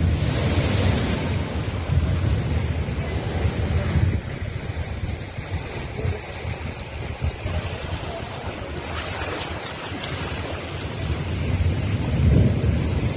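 Heavy storm surf crashing over a rock sea wall and washing across flooded ground, with strong wind buffeting the microphone in a deep rumble. Louder crashes come about a second in and again around nine seconds.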